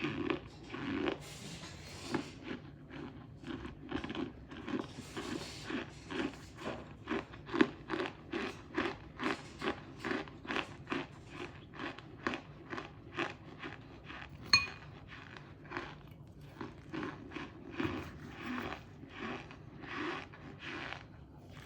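Close-miked chewing of crunchy cornstarch: a steady run of crisp crunches, about two a second. One sharp, ringing click comes about two-thirds of the way through.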